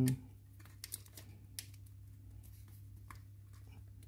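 Scattered faint clicks and creaks of a multi-bit screwdriver loosening a fixing screw in a model car's display-box base, over a low steady hum.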